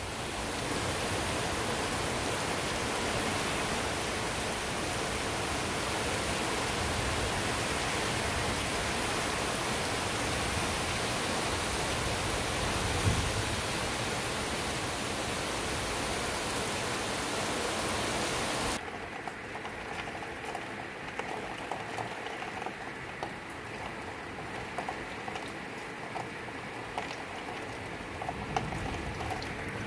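Heavy rain pouring down, a steady even hiss. About two-thirds of the way through it drops abruptly to a quieter, duller rain sound.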